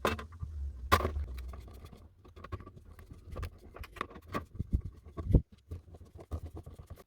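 Irregular clicks, taps and knocks of tools and small metal parts being handled as old handsaws are put back together, with a few sharper knocks at the start, about a second in and again past five seconds in.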